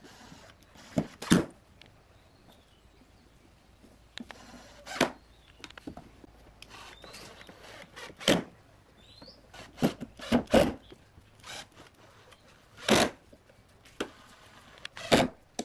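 Cordless drill-driver driving screws into pine blocks in a string of short bursts, about nine in all, with fainter handling noise of wood on the plywood between them.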